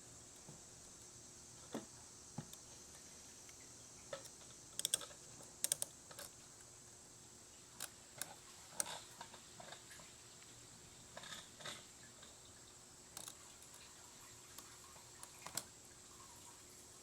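Faint, irregular clicks and light knocks from the old fuel pump assembly being handled as it is lifted out of the fuel tank, with a small cluster of sharper clicks about five to six seconds in.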